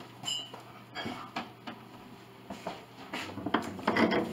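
Scattered knocks and clicks of the wooden and metal parts of an old upright piano being handled during disassembly, with a brief squeak just after the start. The loudest part is a dense cluster of rubbing and knocking near the end.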